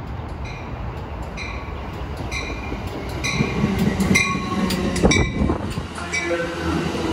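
Amtrak Pacific Surfliner bi-level train pulling into the station cab car first, its bell ringing about twice a second. The rumble of the cars and wheel and brake noise grow loud from about three seconds in as the train rolls past.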